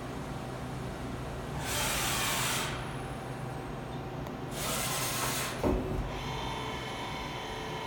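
Okuma V100R CNC vertical lathe running with a steady hum, broken by two bursts of hissing about a second long and a clunk just after the second, followed by a higher whine.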